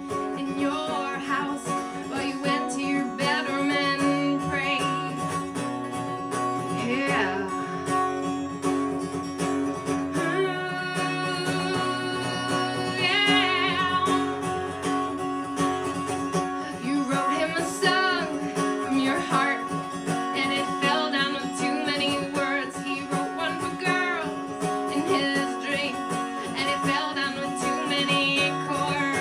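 Live acoustic song: a woman singing with a strummed acoustic guitar, her voice holding long notes with vibrato over steady sustained chords.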